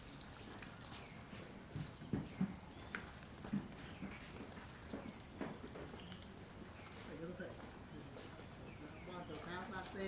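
A steady, high-pitched chorus of insects chirring at two pitches, with a few soft knocks in among it.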